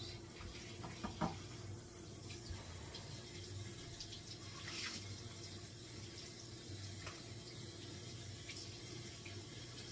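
Kitchen faucet running water into the sink, with a sharp click about a second in and a brief louder splash or hiss near the middle.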